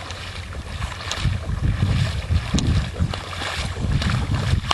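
Rubber boots wading through shallow floodwater, sloshing irregularly, with wind buffeting the microphone.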